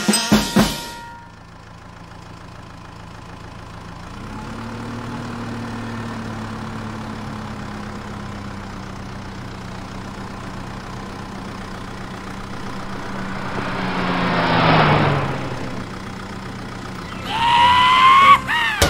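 A heavy vehicle's engine sound effect running steadily. It picks up slightly about four seconds in, then swells louder with a falling pitch around the fourteen-second mark. Near the end there are a few quick falling whistle-like cartoon tones.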